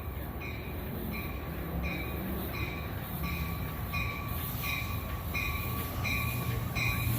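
A bell rings steadily, about one and a half strokes a second, over the low rumble of an approaching train that grows louder.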